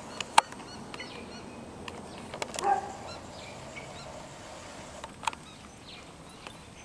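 Geese honking overhead in scattered, fairly faint calls, one louder about two and a half seconds in, with a couple of sharp clicks.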